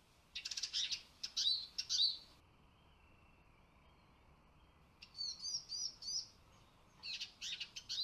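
Eurasian siskins calling: three bouts of rapid twittering chirps and short curving whistles, each lasting one to two seconds, the middle one four quick repeated down-slurred notes.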